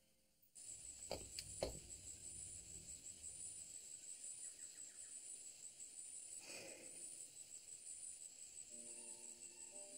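Crickets chirping faintly in an even, pulsing trill, with a couple of soft knocks about a second in. Quiet music comes in near the end.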